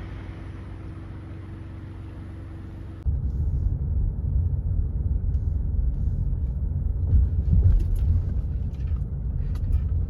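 A car driving, heard as a steady low hum, then about three seconds in an abrupt switch to a louder, uneven low rumble with a few sharp clicks.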